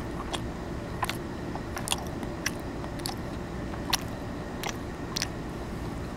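Close-miked chewing of a barbecue-grilled potato with a crisp skin: about eight short, sharp crunches at irregular intervals, over steady low background noise.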